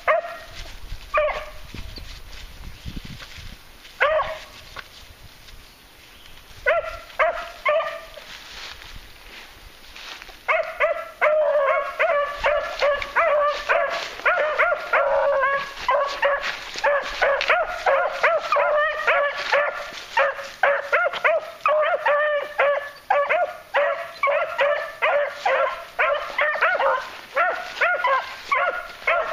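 Beagles giving tongue as they trail with noses down. A few scattered barks come at first, then from about ten seconds in steady, rapid barking continues to the end.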